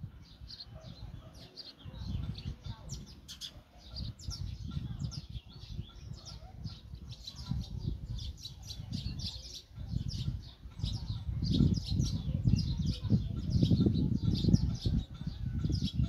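Sparrows chirping in a rapid, continuous stream of short, high chirps. Underneath runs a low rumbling noise that grows louder from about halfway through.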